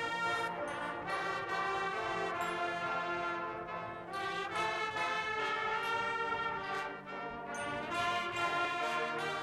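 Guggenmusik carnival brass band playing: trumpets and trombones in full held chords that change every second or so, with a brief dip about seven seconds in.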